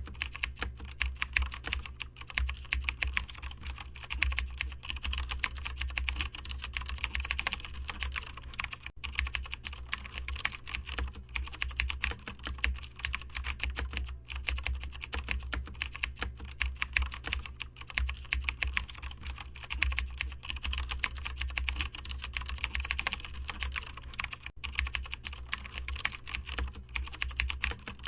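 Continuous fast typing on a computer keyboard, a dense stream of key clicks without pause, over a steady low hum.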